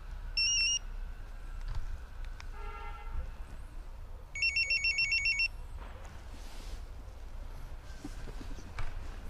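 Car alarm and remote-start system beeping electronically in answer to a remote-start command. One short warbling beep about half a second in, a fainter lower tone around three seconds, then a quick run of about eight warbling beeps lasting about a second.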